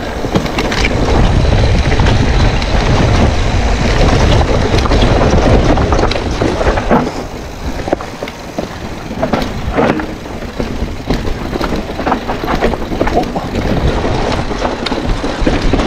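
Mountain bike riding down a leaf-covered rocky trail: tyres rolling and crunching over dry leaves and stones, with the frame and drivetrain rattling over bumps. Wind rumbles on the camera microphone at first, then eases about seven seconds in, leaving the knocks and rattles standing out.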